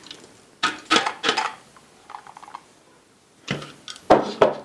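A spatula scraping and knocking sticky nut-and-date dough out of a plastic food processor bowl into a metal cake tin, in a few short clatters: three about a second in, and three stronger ones near the end.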